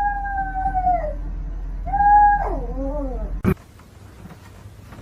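A cat yowling. One long, drawn-out call drops in pitch at its end, and a second call breaks into a wavering, falling yowl. It stops abruptly with a sharp click about three and a half seconds in.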